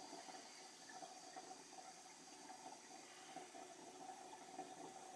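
Faint water-filling sound from an Avalon countertop bottleless water dispenser held on dispense while its empty lines fill up.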